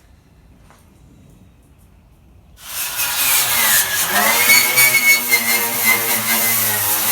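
A motor starts abruptly about two and a half seconds in and runs loudly, its pitch dropping for a moment and then holding steady.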